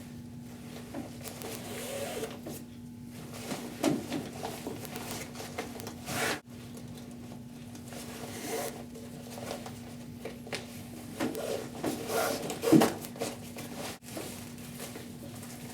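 Orange rope being drawn through the slits of an avalanche airbag and the backpack's nylon webbing, with rustling and scraping of the pack fabric over a steady low hum.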